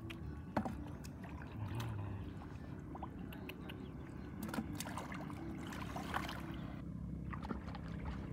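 Hands splashing and scooping through shallow muddy water while groping for fish, with scattered small splashes and drips over a steady low rumble.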